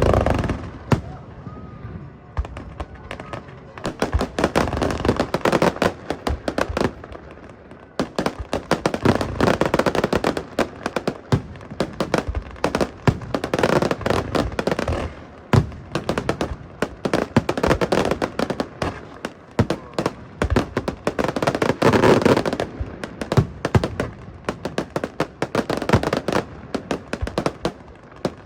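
Fireworks display: a steady barrage of sharp bangs and crackling, swelling into louder clusters every few seconds.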